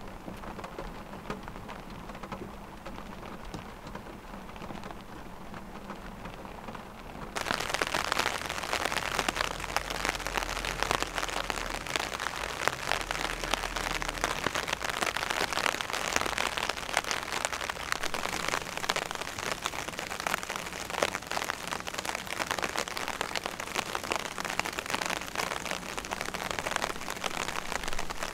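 Heavy rain falling steadily. It is duller and quieter for the first seven seconds or so, then suddenly much louder and brighter, a dense spatter of drops that carries on to the end.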